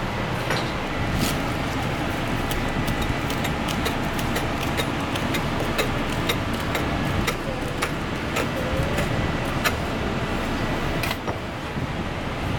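Kitchen knife chopping herb leaves on a cutting board, a run of sharp knocks about two a second, over the steady rushing noise of a restaurant kitchen's range and ventilation.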